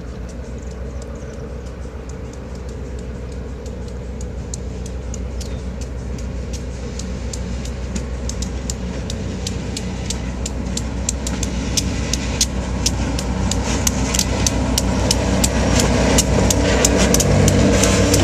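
EMD GP9 diesel-electric locomotive with its 16-cylinder two-stroke EMD 567 engine, hauling passenger cars and approaching at speed. It runs with a steady low engine hum that grows steadily louder as it nears, over a rush of wheels on rail and rapid sharp clicks that come thicker and stronger toward the end as the locomotive reaches the camera.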